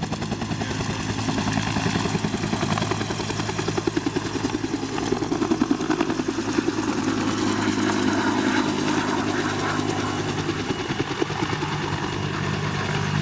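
Makita TW001G 40V 3/4-inch high-torque cordless impact wrench hammering continuously: a rapid, even rattle of impacts over the steady note of the motor.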